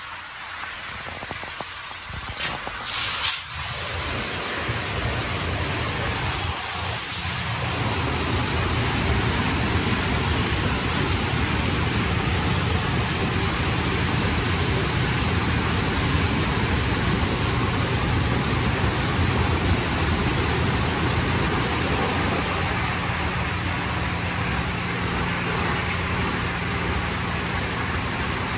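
Mark VII SoftTouch XT in-bay automatic car wash running: spinning soft-touch brushes scrubbing the car under spraying water, a steady rushing noise with a low machine hum. It grows louder about seven seconds in, with a short sharp hiss about three seconds in.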